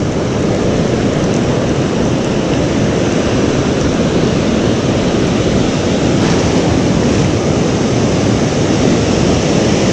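Steady rush of ocean surf washing in, with wind on the microphone.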